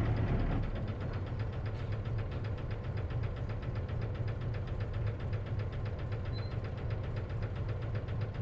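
Isuzu KC-LV380N bus engine idling with a rapid, even rattle-knock over its low hum. This is the abnormal noise this bus is known for, which the owner of the recording suspects may be a symptom of manual-transmission buses.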